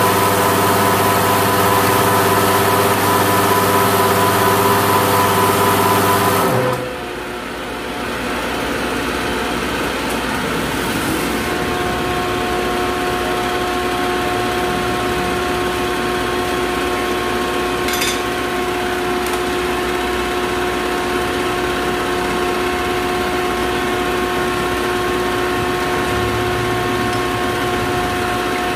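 Diesel injection pump test bench turning a 6D16 inline injection pump on a fuel delivery test, running with a steady hum and whine. About seven seconds in the sound drops off abruptly, then builds back up over a few seconds to a different steady tone as the bench runs at a new speed. There is a single light tick near the middle.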